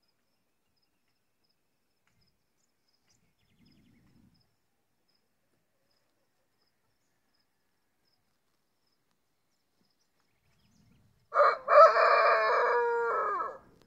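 A rooster crows once, loud and close, near the end: a short first note, then a long held call that tails off.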